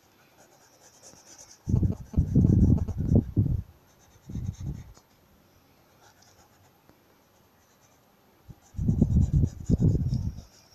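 Pencil rubbing back and forth on notebook paper while shading in a drawing. There are three bursts of scratchy rubbing: one of about two seconds, a short one, and another near the end.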